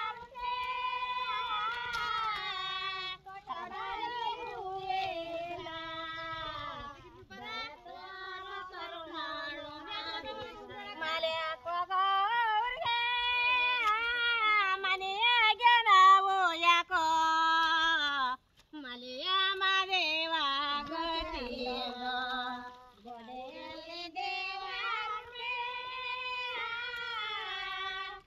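A woman singing a folk song unaccompanied, in long held, wavering phrases with short pauses between.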